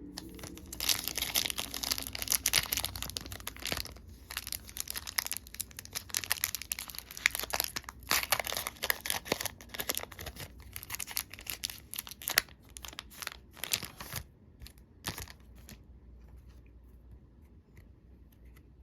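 Foil wrapper of a Magic: The Gathering booster pack being torn open and crinkled: a dense crackle for about twelve seconds, thinning to a few separate crinkles near the end.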